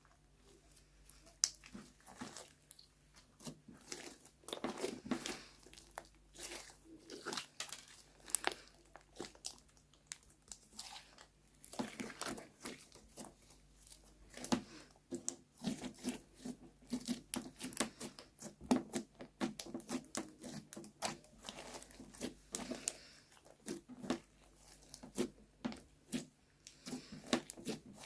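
Slime being worked by hand, squished and pulled, giving many irregular sticky clicks and crackles.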